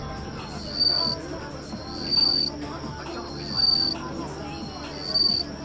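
Insect chirping: a short, high, buzzy trill repeated at a steady pace, about once every one and a half seconds.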